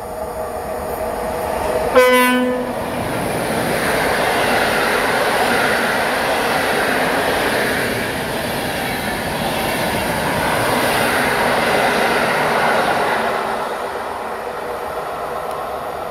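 An electric locomotive sounds its horn once, briefly, about two seconds in, then the locomotive-hauled Intercity passenger train passes through the station without stopping, its coaches rushing and clattering over the rails. The passing noise builds, holds, and fades near the end as the last coaches go by.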